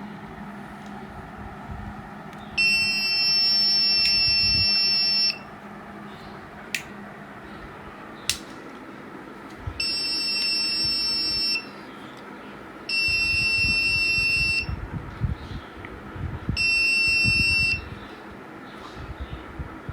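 Buzzer of a laser-and-LDR security alarm circuit sounding four times, each a steady high-pitched tone lasting one to three seconds, going off when the laser beam to the light sensor is broken. Two sharp clicks fall between the first and second tones.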